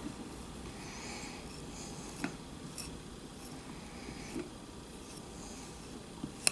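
Skiving knife shaving thin deer nostril hide, faint short scraping strokes with a few small clicks, then one sharp click near the end.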